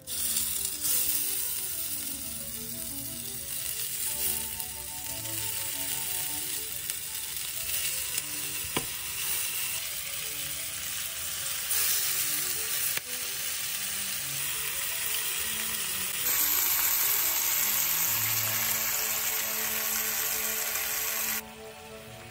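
Marinated chicken drumsticks sizzling in hot oil in a frying pan: a dense, steady sizzle that starts as the first piece goes in, grows louder about two thirds of the way through and drops away abruptly near the end.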